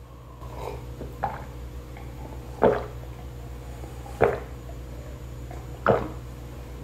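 A person gulping water from a glass jar close to the microphone: about five separate swallows, the last three the loudest.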